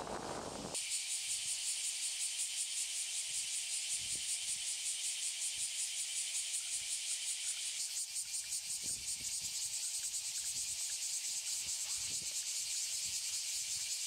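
Insects trilling steadily in a dense, high-pitched chorus of very fast pulses, with faint soft ticks underneath.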